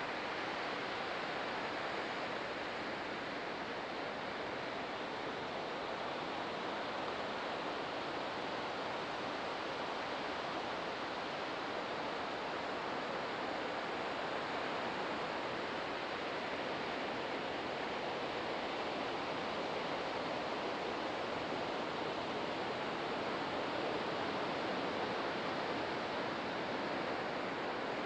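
Ocean surf: a steady, unbroken wash of breaking waves with no single crash standing out.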